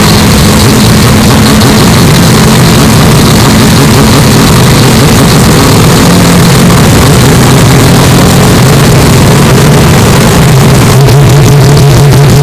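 Mazda 767B's four-rotor Wankel engine running, very loud and distorted. It holds a steady high idle, then drops to a lower, rougher idle near the end.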